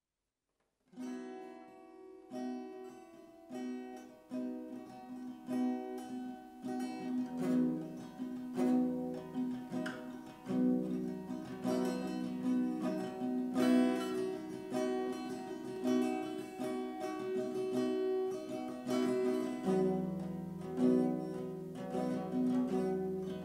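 Background music played on a plucked acoustic guitar, with picked notes in a steady rhythm, starting about a second in.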